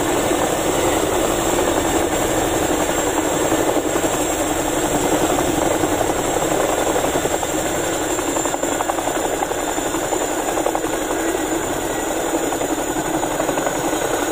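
Boeing CH-47 Chinook tandem-rotor helicopter running on the ground with both rotors turning, very loud and steady, with a steady high turbine whine over the rotor noise.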